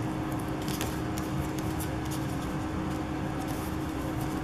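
Faint rustling and light ticks of scrapbook paper being handled and pressed on a tabletop, over a steady low hum.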